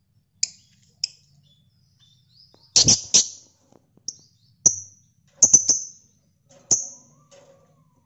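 Caged masked lovebirds calling: about ten short, sharp, high-pitched chirps at irregular intervals, several coming in quick pairs or triples.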